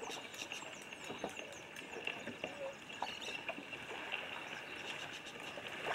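Quiet outdoor ambience: a bird's short, falling chirps repeat through the first two seconds, over a steady high hum and a few faint ticks.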